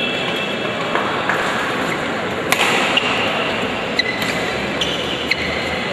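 Badminton rally: sharp racket strikes on the shuttlecock, about five from halfway through, with short squeaks of shoes on the court floor, over a steady background noise of the hall.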